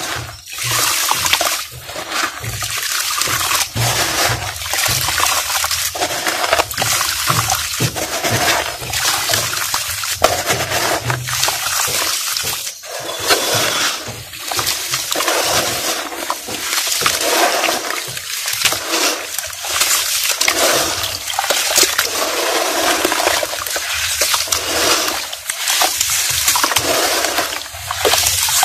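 Dried red dirt crumbling into a basin of water as hands break it apart, squeeze it and slosh the muddy water, in a continuous wet splashing that swells and falls irregularly with short crackles.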